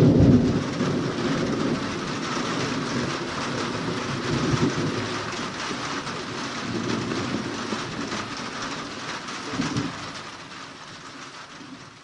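Heavy thunderstorm rain falling steadily with rolling thunder: a loud rumble dies away in the first half second, weaker rumbles come and go, and the whole fades out near the end.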